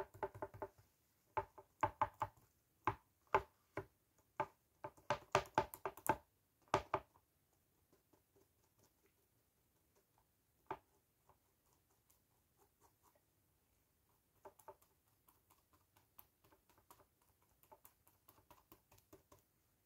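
A paint-loaded foam sponge dabbed and tapped repeatedly onto a phone case lying on a tabletop, making quick knocks. There is a fast run of taps in the first seven seconds, one knock near the middle, then lighter, fainter dabbing toward the end.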